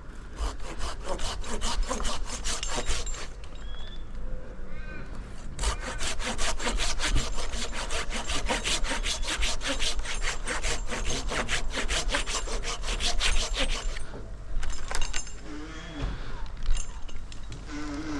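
Hand pruning saw cutting through wood in quick, even strokes, about four or five a second. It stops for a couple of seconds about three seconds in, then saws steadily again before stopping near the end.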